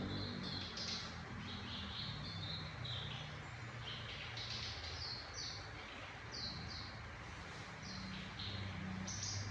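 A small songbird chirping: short high-pitched notes in quick, irregular runs, over a faint steady low hum.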